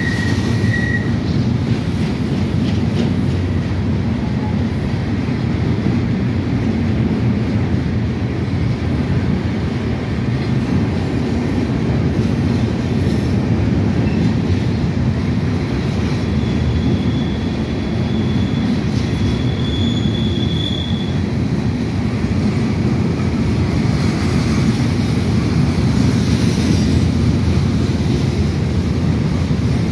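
Freight train of empty open-top hopper cars rolling past, a steady loud rumble of wheels on rail. A brief high wheel squeal sounds at the very start, and another, higher and longer one a little past the middle.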